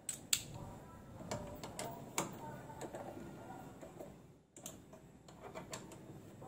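Small hand socket tool tightening a 10 mm bolt on a metal motorcycle bracket: scattered light metallic clicks and taps of the tool on the bolt and bracket.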